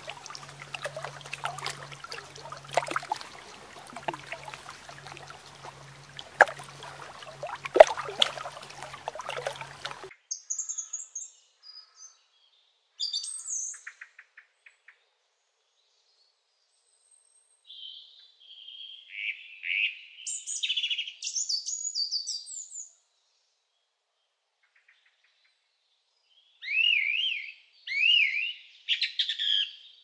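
Water trickling and lapping with scattered sharp clicks and splashes, then, after a sudden cut about a third of the way in, short high bird chirps in scattered bursts with silent gaps between them. A few quick up-and-down calls come near the end.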